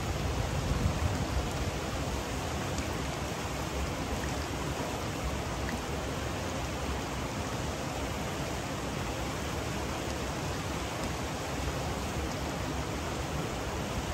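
Steady rushing noise of water with a low, uneven rumble underneath.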